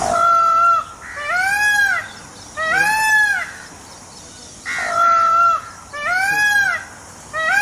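Peacock calling loudly: two series of three short, ringing calls, each under a second long. The first call of each series holds a steady pitch and the next two rise and fall.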